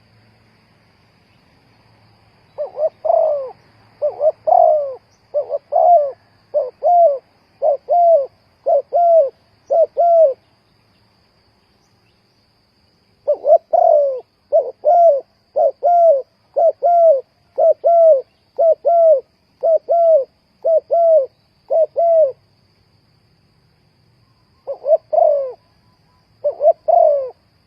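Spotted dove cooing in three runs of repeated notes, about one a second, with short pauses between the runs.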